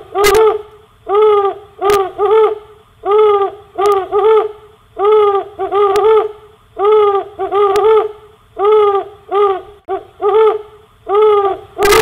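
An owl calling over and over in short, arching hoots, about one or two a second and often in pairs. A few sharp clicks come in between the calls.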